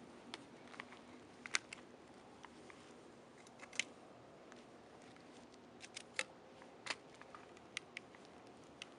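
Faint, irregular sharp clicks and ticks, about fifteen scattered over several seconds, the sharpest about one and a half and four seconds in.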